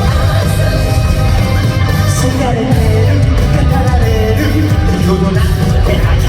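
Loud live concert music: a vocalist singing a melody over a rock band backing with heavy bass.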